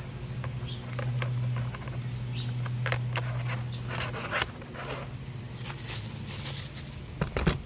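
Handling noise: light clicks and taps of small plastic tripods and a phone being moved, then crinkling of a plastic wrapper. A steady low hum underneath stops about four seconds in.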